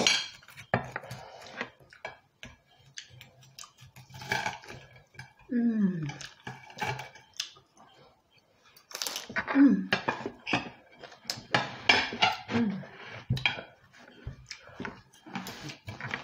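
Cutlery clinking and scraping against plates at a meal, many short irregular clicks, with a few brief hummed or murmured vocal sounds in between.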